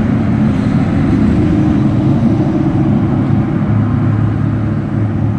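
Honeybees buzzing in a steady, loud, low hum around a brood frame pulled from the open hive.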